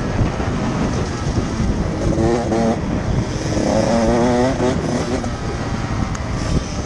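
Motocross bike engine heard from on board, its pitch rising and falling as it is revved between gear changes, over a heavy low rumble of wind on the camera microphone.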